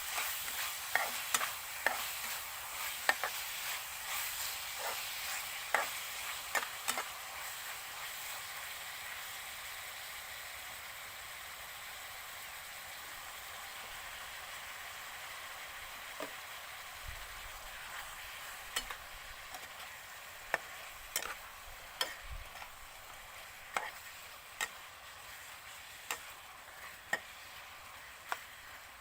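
Stir-fry sizzling in a hot pan, the sizzle slowly dying down, while a utensil stirs the food with scattered sharp clicks and taps against the pan.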